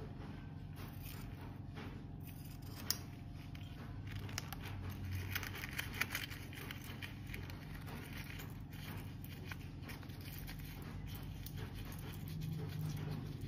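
Scissors snipping a rubber balloon, with one sharp click about three seconds in. Then soft rubbery rubbing and rustling with small clicks as the balloon is squeezed and handled, over a steady low hum.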